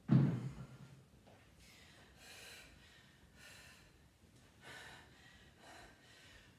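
A thud as a pair of hex dumbbells touch down on a rubber gym floor, the loudest sound, right at the start. Then a woman's heavy breathing from exertion: a hard breath about every second.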